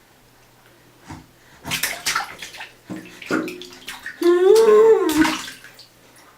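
Baby splashing in bathwater, a run of short splashes, then a loud, drawn-out vocal noise about a second long that rises and falls in pitch.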